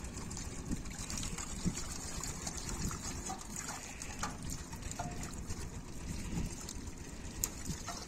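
Shallow pond water splashing and trickling as fish are picked by hand from a seine net into plastic baskets, with small scattered splashes and knocks.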